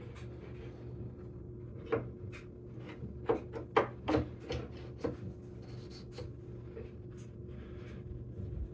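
Steel lathe spindle being pushed and turned by hand through the headstock bearings and bull gear, giving a scatter of small metal clicks, knocks and rubbing, most of them between about two and five seconds in, as the Woodruff key is worked toward its slot in the gear.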